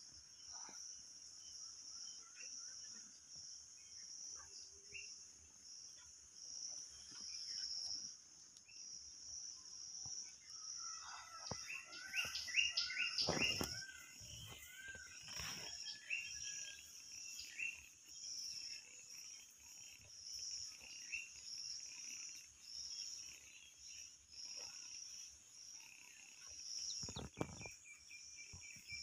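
Insects chirring steadily in a high, pulsing drone, with a bird calling a quick run of short chirps about halfway through. A couple of short low thumps come in the middle and near the end.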